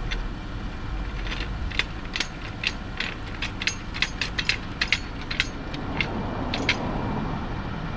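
A metal car jack clicking and ratcheting as it is set under the vehicle's jack point and raised toward it, in an irregular run of sharp clicks, over a steady low hum.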